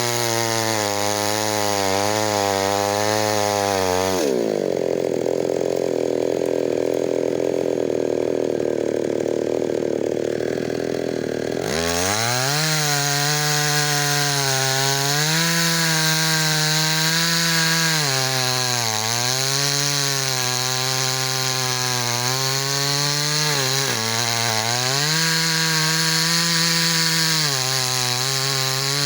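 Two-stroke chainsaw cutting wood, its engine pitch sagging and recovering again and again as the chain bites. About four seconds in it drops to a low idle, and near twelve seconds it revs back up and resumes cutting.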